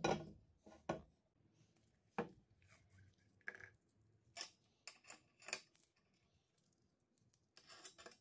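Steel bar set down on a steel plate with a sharp metal clank, followed by two more knocks about one and two seconds in. Then a run of small metallic clicks as ball bearings are handled and placed on the plate, and a short scrape near the end.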